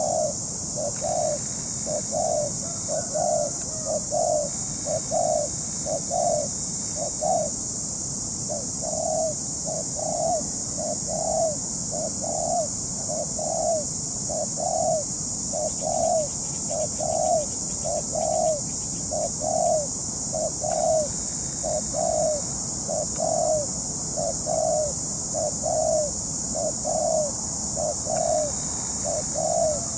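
Spotted dove cooing in a long run of short, evenly repeated notes, a little over one a second, with a brief break about eight seconds in. A steady high hiss runs underneath.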